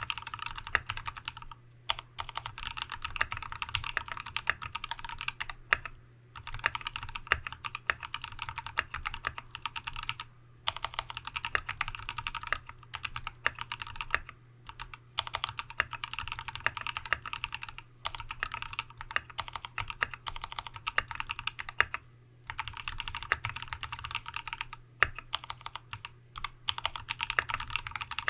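Typing on a TX75v2 custom keyboard with a brass plate, lubed Tealios V2 linear switches in Cherry top housings, and Dev/tty MT3-profile keycaps: runs of fast keystrokes broken by short pauses every few seconds.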